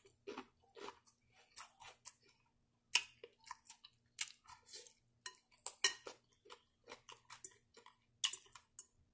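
Close-up chewing of a mouthful of crunchy salad: irregular short, sharp crunches, loudest about three, four, six and eight seconds in.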